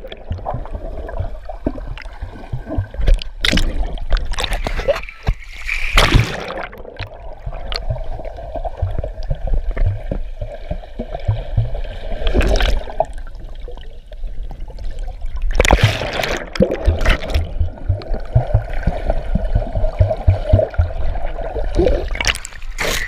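Sound heard underwater in a swimming pool: bubbles and rushing water come in several bursts as a swimmer moves and breathes out, over a steady hum, with low thuds throughout.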